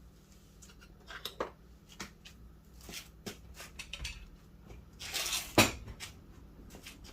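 Scattered light clicks and metallic clinks of small hard objects being handled, with a short rasp that ends in a sharp, louder click about five and a half seconds in.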